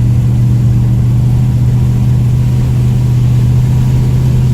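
V8 Volvo's engine and exhaust droning at a steady pitch while the car cruises at about 40, heard from inside the cabin over low road rumble.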